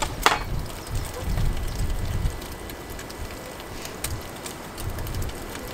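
Low, uneven rumbling of wind buffeting the microphone, with a sharp click about a quarter second in and a lighter click about four seconds in.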